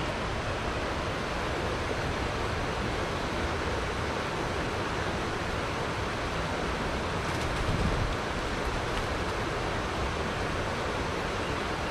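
Steady rushing of flowing river water, an even hiss with no rhythm, with a soft low thump about eight seconds in.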